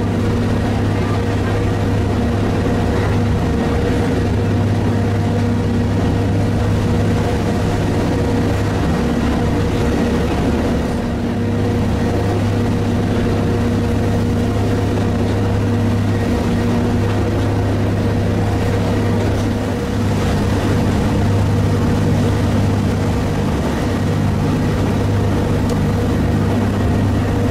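Swiss-built diesel rack railcar of the Pikes Peak cog railway running as it climbs, heard from inside the passenger cabin: a loud, steady drone with a deep hum and a few fainter steady tones above it.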